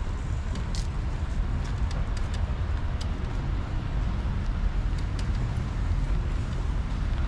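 Road traffic: a steady rumble of passing cars, with scattered faint ticks.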